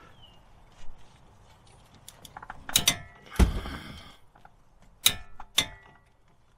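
Metal hand tools at work on the wheel hub: a few sharp metallic clicks and knocks, with a short rasping, ratchet-like stretch and a heavy knock near the middle.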